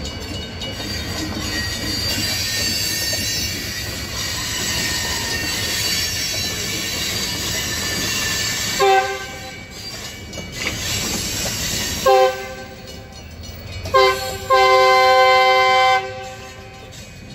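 Freight train of tank cars rolling past behind an EMD SD40 locomotive, its wheels giving a high-pitched squeal over the rumble. In the second half the locomotive's horn sounds three short blasts, then a longer blast of about a second and a half.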